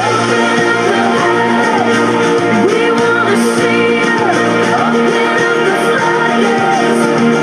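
Recorded contemporary worship song playing loud and steady: a full band with guitar, and singing.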